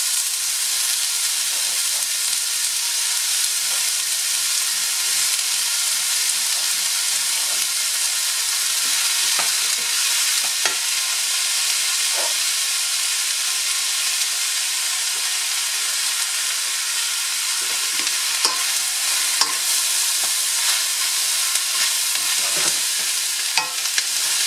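Sliced cremini mushrooms and diced onion frying in rendered ham fat in a stainless steel sauté pan: a steady high sizzle. A wooden spatula scrapes and knocks against the pan now and then, more often in the second half.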